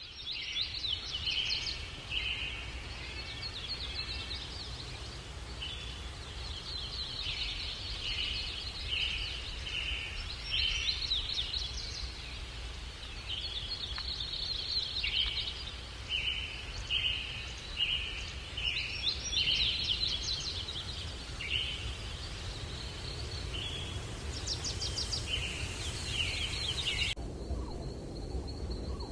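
Small forest birds calling, many short high notes in quick repeated phrases, over a steady low background rumble. Near the end the birdsong cuts off, leaving a thin steady high tone and soft low rustling.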